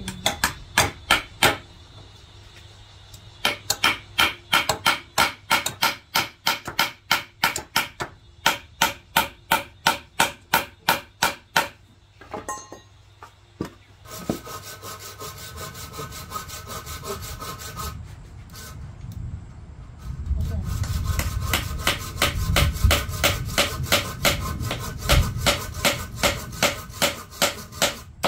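Hand saw cutting wood in quick, regular back-and-forth strokes, about three a second, with a short break about twelve seconds in.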